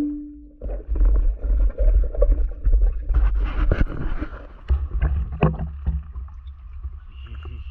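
Water sloshing and gurgling around a diver's action camera as he swims up and breaks the surface about halfway through, with a low rumble throughout and scattered clicks.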